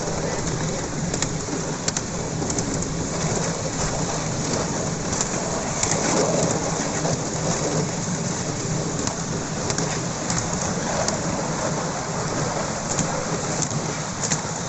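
Miniature railway carriages rolling along the track: a steady rushing rumble of wheels on rail, with irregular clicks and clacks.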